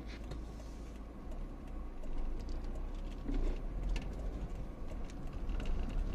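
Car engine and road noise heard from inside the cabin while driving slowly: a steady low rumble with scattered light clicks and rattles.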